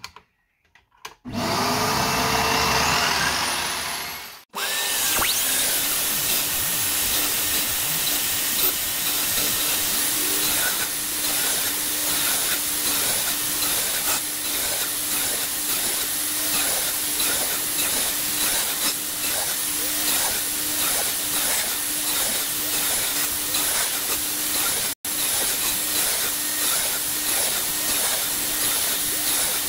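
Aldi Ferex 216 mm sliding mitre saw running with a vacuum cleaner hooked up to its dust port, a steady machine whine with a regular pulsing through it, as the blade makes repeated depth-stopped cuts to clear a lap joint in a piece of softwood.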